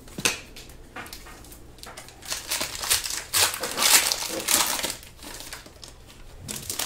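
A trading-card pack wrapper crinkling as it is torn open and the cards are handled, with irregular crackling that is busiest through the middle.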